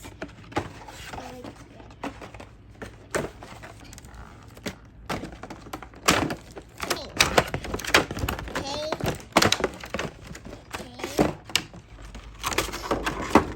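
Plastic toy pieces and packaging being handled and set down: a run of irregular clicks and knocks, busier in the second half.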